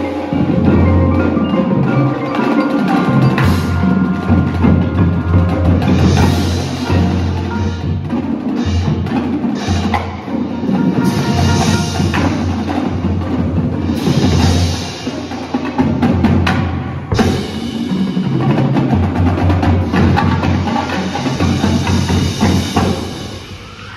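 Indoor percussion ensemble playing: marimbas and vibraphones with marching snare, tenor and bass drums and cymbals, loud and dense throughout. The playing stops shortly before the end.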